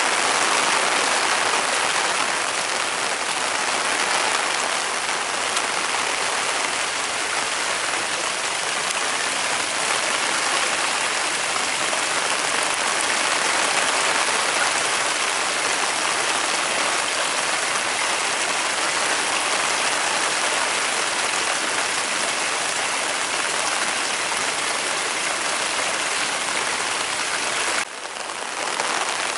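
Swollen, muddy storm runoff rushing down a small mountain channel and gushing from an opening in the bank, mixed with steady heavy rain. The water sound is loud and continuous, with a brief dip near the end.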